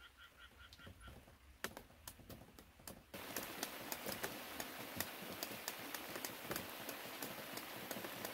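Rain: a few scattered drops tick at first, then about three seconds in a steady patter of rain with many sharp drop ticks sets in abruptly.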